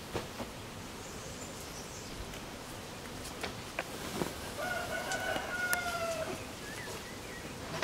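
A rooster crowing once, a single long call of about a second and a half that falls slightly at the end. A few short sharp sprays from a hand spray bottle are heard alongside it.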